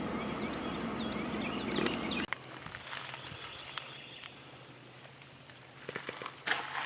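Many short rising bird chirps over a steady low rumble, cutting off abruptly about two seconds in. Then quieter, with a low steady hum, a few clicks, and a loud burst of rustling noise near the end.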